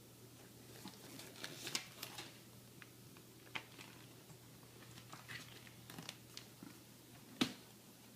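Faint scattered clicks and rustles of hands handling stickers and their paper backing, with one sharper tap about seven seconds in.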